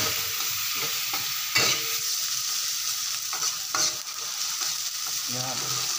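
Chopped ginger sizzling in hot oil in a metal wok, stirred with a metal slotted spatula that scrapes and clinks against the pan a few times.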